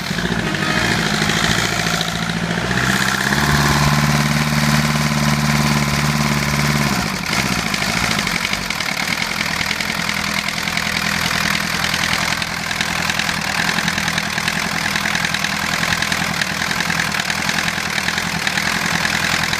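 Lombardini LDW 1204 four-cylinder diesel, marinized as a boat engine, running steadily. A louder steady low hum joins about three seconds in and cuts off about seven seconds in, after which the engine runs evenly.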